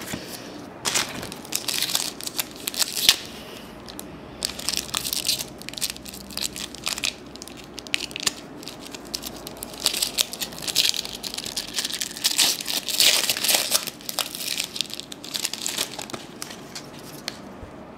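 Foil trading-card pack wrappers of 1996-97 Topps basketball being torn open and crumpled by hand: crackly crinkling in several bouts, with short pauses between them.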